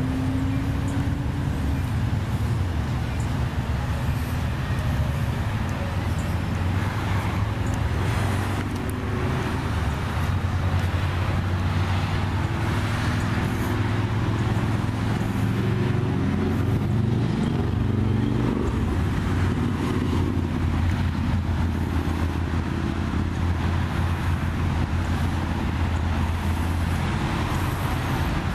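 Steady road traffic noise: a continuous low rumble of cars running on the road.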